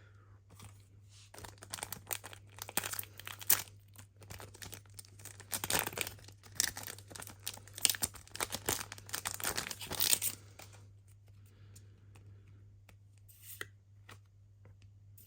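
A foil One Piece Card Game booster pack being torn open and its wrapper crinkled: a dense run of crackling rustles for about nine seconds, then a few faint handling sounds.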